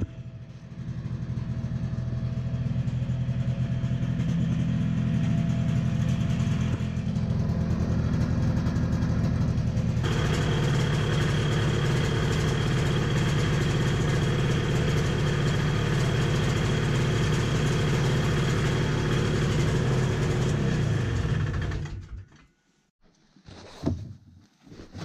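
Yamaha Bravo snowmobile's single-cylinder two-stroke engine running at a steady idle. It gets louder and clearer about ten seconds in, then is shut off abruptly near the end, followed by a couple of knocks.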